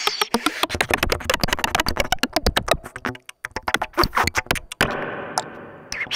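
Free improvisation on amplified trumpet and modular synthesizer: a dense stream of rapid clicks and stuttering pops, giving way about five seconds in to a steady rushing noise that fades away.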